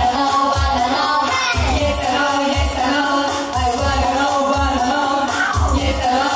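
J-pop song performed by a girls' idol group: young female voices singing over music with a steady bass beat about twice a second.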